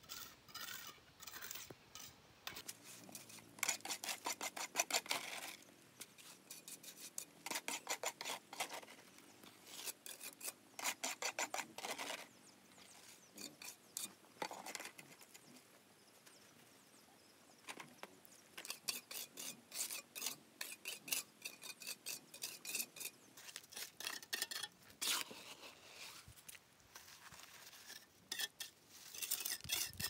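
Repeated runs of quick scraping strokes on a hard surface, each run lasting a second or two, with short pauses between them.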